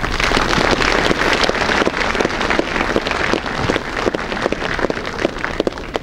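Audience applauding: dense, steady clapping from many hands, dying away at the very end.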